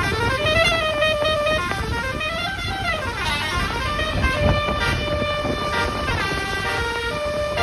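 A bus's multi-tone telolet (basuri) horn playing a very loud melody: held notes alternate with notes that swoop up and down, the tune changing every second or so.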